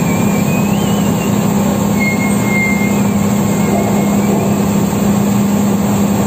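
Drilling rig machinery running while pipe is pulled out of the well: a loud, steady mechanical din with a constant low hum. A thin, wavering high squeal rides over it for the first few seconds.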